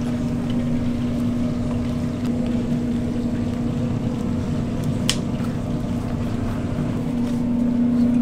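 Steady hum and drone of commercial kitchen equipment under a pot of steaming chicken feet, with one short sharp click about five seconds in.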